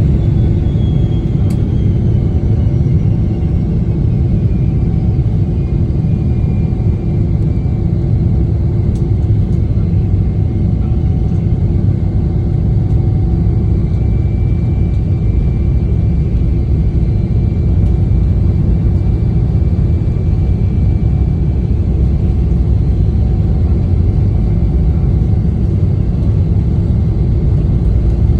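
A Boeing 777-300ER's GE90 turbofan engines on the takeoff run, a loud steady rumble heard from inside the cabin. A thin whining tone falls in pitch over the first few seconds and then holds steady.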